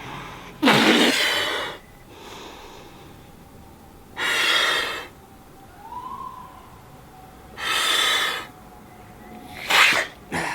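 A man blowing hard into a rubber balloon to inflate it: three long, forceful breaths of about a second each, with quieter intakes of breath between, and a short sharp gasp near the end.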